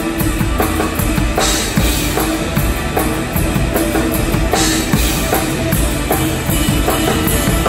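Rock drum kit played live with the band, heard close up from the drummer's position: a steady kick-and-snare beat over bass and guitar, with two big cymbal crashes, about a second and a half in and again near four and a half seconds.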